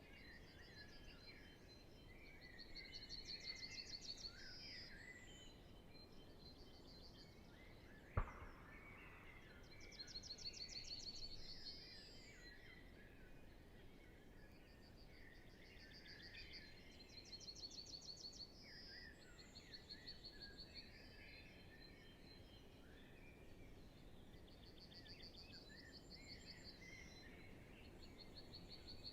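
Faint spring dawn chorus of many songbirds in still air. One bird repeats a fast, high trill of about a second and a half roughly every seven seconds, over softer overlapping songs. A single sharp click sounds about eight seconds in.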